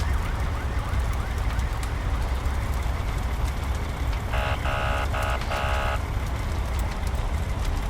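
A house fire burning, a steady low rumble with crackling. A fire engine's siren yelps faintly at the start and fades out, and about halfway through its horn sounds in four short blasts.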